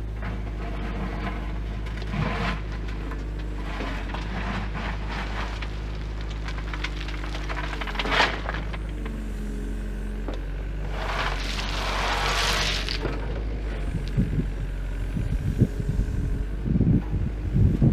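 Volvo ECR88 excavator's diesel engine running steadily while it works the gravel, with a short swell of rushing noise about eight seconds in, a longer one a few seconds later, and a run of knocks and clatters near the end.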